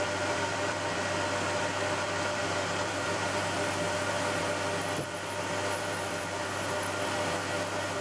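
Milling machine spindle running steadily while a drill bores an M5 tapping-size hole, 8 mm deep, into the cast-iron tailstock body of a Colchester Student lathe. A faint high whine joins about five seconds in.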